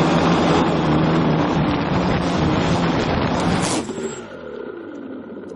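Quadcopter's electric motors and propellers running steadily, heard from its onboard camera. About three and a half seconds in, a sudden crash as it flies into a bush, and the motors then wind down with a falling pitch.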